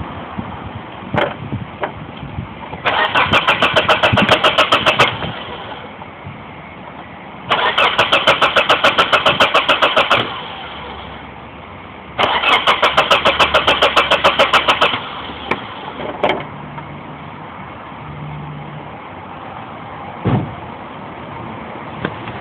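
1995 Mitsubishi Eclipse engine cranking on the starter three times, each try lasting a couple of seconds with a fast, even chug, and never catching: a car that won't start. A few short clicks come between the tries.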